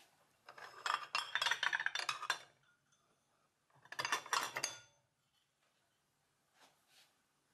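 Dishes and cutlery clinking against a stainless-steel wire dish rack as washed items are set into it: two busy runs of clinks, then a couple of faint taps near the end.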